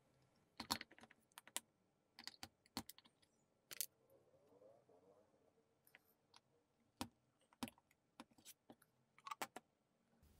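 Scattered, irregular small clicks and taps of a metal pin vise and titanium rod against a 3D-printed plastic part as the rod is pushed into a tunnel in the print.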